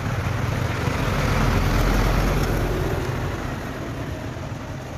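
A vehicle passing on the road: a broad rumble that swells to its loudest about two seconds in and then fades away.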